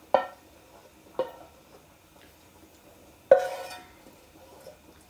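A cooking utensil knocking against a pan three times while cooked pancetta is lifted out onto a paper-towel-lined pan. Each knock rings briefly, and the third, about three seconds in, is the loudest.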